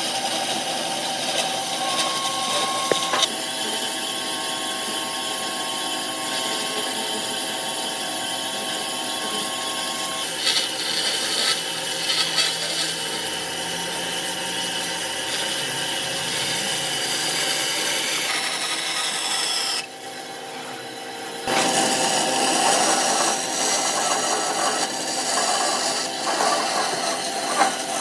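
Power tool working wood, running steadily, with a brief quieter break about twenty seconds in.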